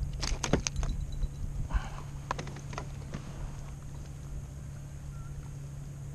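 Knocks and clatter of a channel catfish and a plastic measuring board against a plastic kayak as the fish is laid out for measuring: a quick run of knocks in the first second, a few more about two and a half seconds in, then only a steady low hum.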